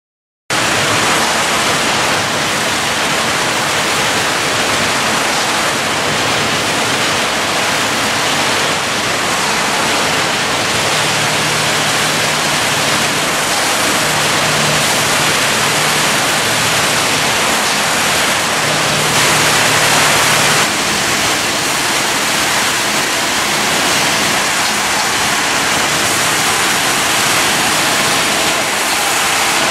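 Sawmill log line running, with its conveyors and chipper canter making a loud, dense, steady machinery noise that starts abruptly. A low hum comes and goes, and the noise swells briefly about twenty seconds in.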